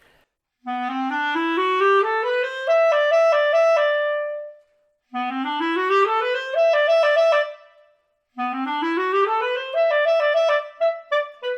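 Solo clarinet playing a rising scale passage three times over, each run climbing note by note to a held top note. The passage is awkward because a note, the E, is missing from the top of the scale.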